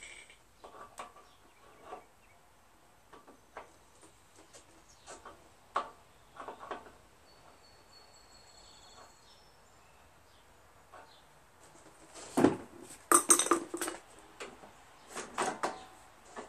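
Wrench and nuts clinking on a go-kart's front axle as a wheel is fitted, in scattered light metal clicks. A louder spell of metal clatter comes about twelve seconds in.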